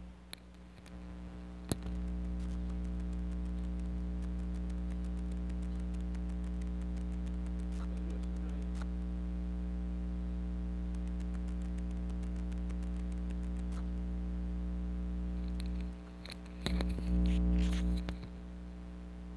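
A steady low hum made of several even pitches, louder from about two seconds in, with faint scattered clicks over it; it dips briefly near the end and then swells louder for about a second with a few sharper clicks.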